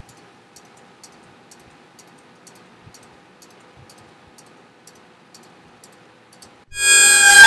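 Soft, regular ticking, about two ticks a second, over a faint steady hum. Near the end, loud music cuts in suddenly.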